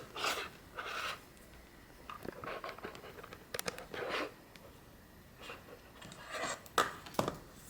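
Handling of a small plastic charging coaster and its power cable as it is plugged back in: scattered scrapes and rustles with a few sharp clicks, the loudest near the end.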